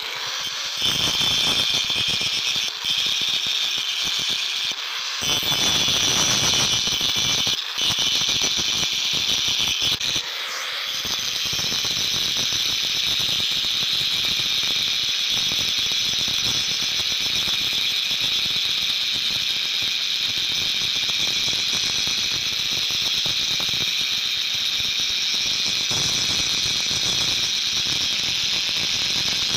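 Angle grinder grinding the end of a steel hammer blank: a loud, steady high grinding whine. It lifts off the steel briefly a few times in the first ten seconds, then grinds continuously.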